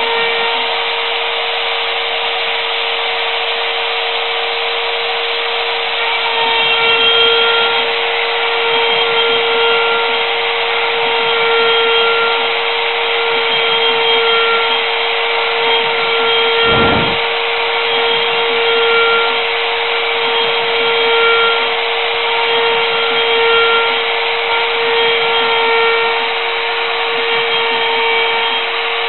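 Mini CNC router's spindle motor running with a steady whine, its level swelling and easing about every two seconds as the machine works. A single sharp knock about seventeen seconds in.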